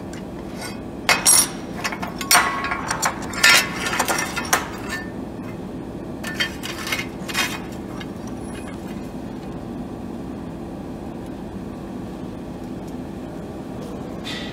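Thin-walled steel square tubes clinking and clanking against a steel welding table as they are handled and set in place. The metal knocks come in a quick irregular cluster and stop about halfway through, over a steady machine hum.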